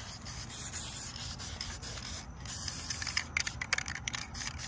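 Aerosol spray can hissing as a coat is sprayed onto an engine gasket, with a short break a little past two seconds in.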